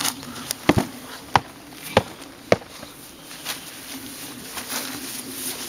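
A string of sharp knocks, about one every half second in the first two and a half seconds and a few fainter ones later, over a steady low buzz.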